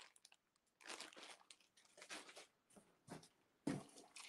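Faint crinkling of clear plastic packaging being handled, in short irregular rustles, with one slightly louder rustle and knock a little before the end.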